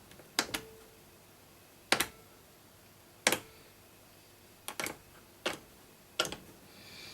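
Sharp clicks and light knocks of hard parts, six in all, several in quick pairs, spaced a second or so apart, as the Dansette record player is handled.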